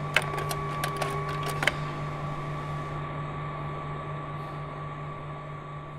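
Carousel slide projector running with a steady hum, with a quick run of sharp clicks in the first two seconds from its slide-changing mechanism.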